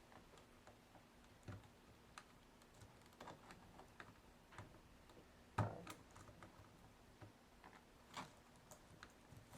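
Faint, scattered clicks and taps of a flat screwdriver tip pressing in the keyboard retaining tabs of an Acer Aspire 5920 laptop, with one sharper knock a little past the middle.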